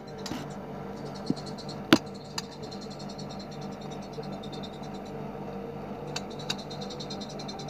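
A small songbird's rapid, high-pitched trill, fast and even like a rattle, over a steady low hum, with a few sharp chips or clicks, the loudest about two seconds in.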